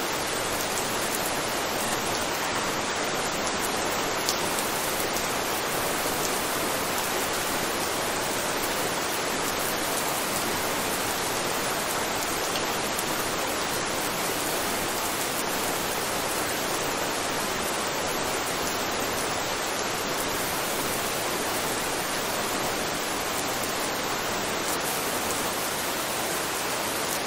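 Steady rain: an even hiss of falling rain, with a few faint drop ticks.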